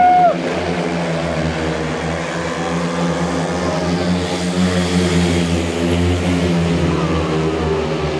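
Speedway bikes' 500 cc single-cylinder methanol engines running flat out as the pack races round the track, a dense steady drone that grows a little brighter as the riders pass close by about four seconds in. A loud horn-like blast cuts off just after the start.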